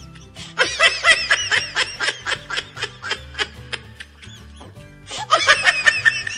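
High-pitched laughter in quick rapid pulses, in two runs: from about half a second in for two and a half seconds, and again for about a second near the end, over background music with a stepping bass line.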